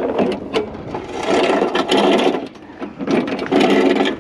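Lawn mower being slid and dragged along, scraping and rubbing in two long strokes of about a second each, with a shorter scrape at the start.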